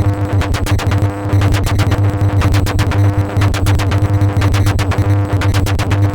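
Experimental electronic click-noise music generated in Pure Data: dense, rapid clicks over a steady loud low tone and a fainter higher tone.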